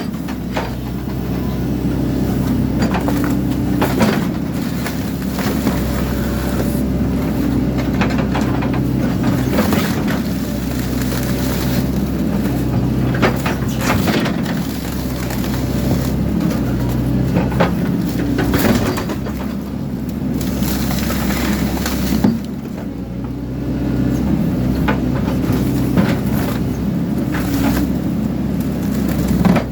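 Excavator's diesel engine running steadily while its attachment crushes and tears the metal casing of a hot water system, with repeated irregular metallic knocks, scrapes and crunches.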